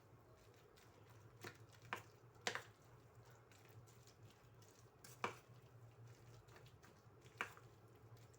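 Spoon stirring a thick potato-and-carrot batter in a bowl, faint, with about five sharp clicks of the spoon against the bowl at uneven intervals.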